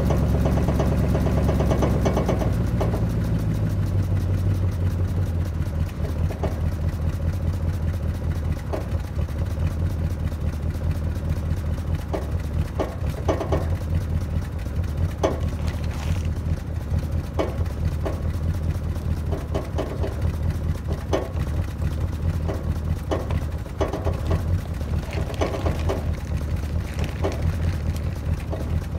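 Cold-started 318 V8 with a two-barrel carburettor idling steadily. About two seconds in, the idle drops to a slower, quieter idle. Scattered light clicks and tarp rustling sound over it.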